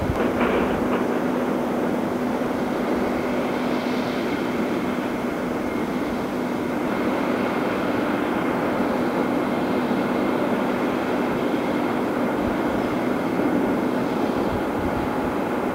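Heavy diesel machinery running steadily, a constant low hum over a rough engine noise.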